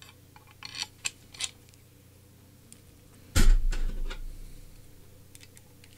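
Handling of a Parkside 3-in-1 hacksaw frame as its metal end piece and peg are refitted: a few light clicks, then one heavy dull thump about halfway through that dies away over about a second.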